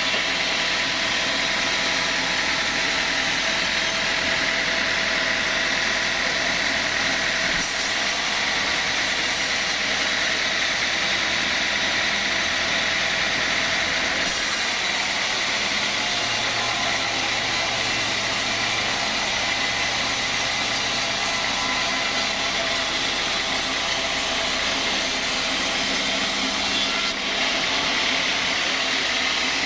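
Sawmill machinery running steadily, a loud constant mechanical drone with a few steady tones through it; the sound shifts abruptly a few times, at about eight, fourteen and twenty-seven seconds in.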